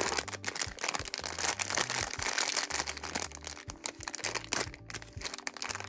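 Silver foil blind-box bag crinkling and rustling in the hands as it is pulled and torn open at its notch, a dense, continuous crackle.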